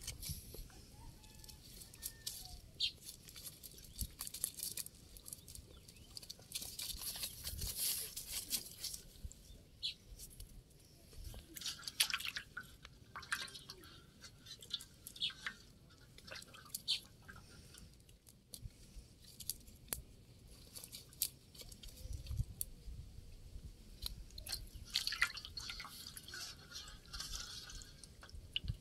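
Wet fishing net being handled and picked through, with irregular rustling and crackling of the mesh, and small splashes and drips from live fish moving in a steel bowl of water.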